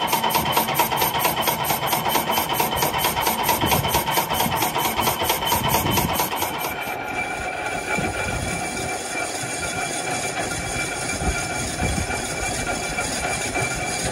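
Metal lathe running with a tractor clutch part spinning in its chuck: a steady mechanical whir with a fast, even ticking that stops about seven seconds in. After that a steadier hum with some low rumbling goes on.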